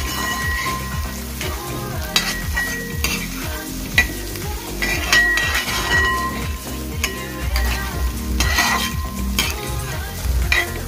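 Steel spoon scraping and clinking against an aluminium pot as chopped carrot, capsicum, chicken and egg are sautéed in hot oil, with a steady sizzle. The scraping strokes come every second or two, some with a short metallic ring.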